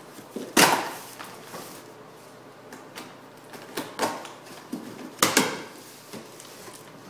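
Cardboard box being opened and handled: a few sharp knocks and scuffs, the loudest about half a second in and another about five seconds in.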